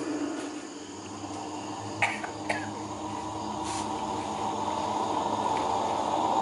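Experimental live electronic music from a tabletop effects-pedal rig: a steady crackling, droning texture that slowly grows louder, with two sharp clicks about two seconds in.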